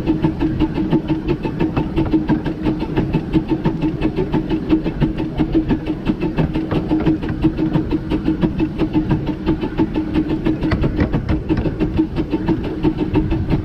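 The 15-inch gauge steam locomotive River Irt running along the line: a steady, rapid rhythm of about four beats a second over continuous wheel and rail noise, with a steady hum.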